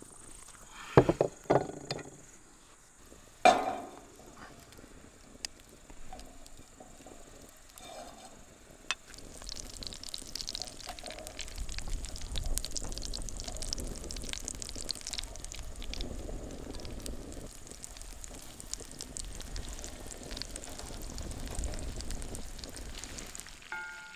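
Three sharp knocks in the first few seconds, then from about nine seconds in a steady crackling sizzle of butter and chanterelle mushrooms frying in cast-iron pans over a wood fire.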